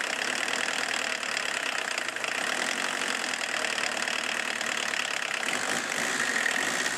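Turbo-diesel engine running, kept going by a hand on the injection pump's throttle because it will not run at idle on its own. A thin, steady high whine joins the engine noise about six seconds in.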